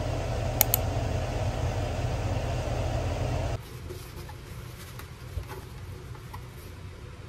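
A steady machine-like hum with two sharp clicks about half a second in, cutting off suddenly after about three and a half seconds; then much quieter soft handling sounds with faint light taps as a paper towel is handled over a plastic cutting board.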